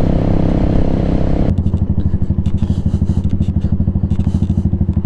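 Venom Ghost Chopper 250 motorcycle engine running while riding, with wind rush over it. About a second and a half in, the wind noise drops away and the engine settles into an even, pulsing idle as the bike stops at a junction.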